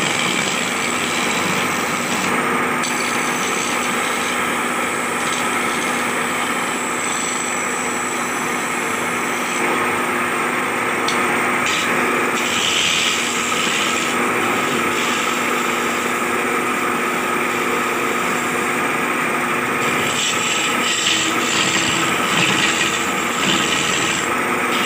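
Wood lathe running steadily with a constant motor hum while a hand-held chisel cuts the spinning wooden cot leg, the shaving noise swelling at times.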